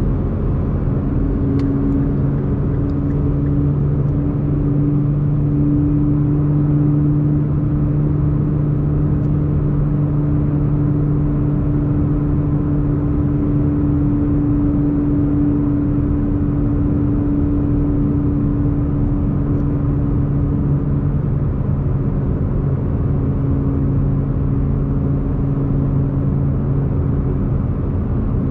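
Nissan GT-R (R35) twin-turbo V6 running at a steady cruise, its low engine hum holding one pitch over tyre and road noise.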